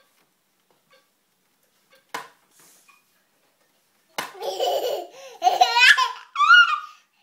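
Toddler laughing: a run of loud, high-pitched giggles with rising and falling pitch starting about four seconds in, after one short sharp sound about two seconds in.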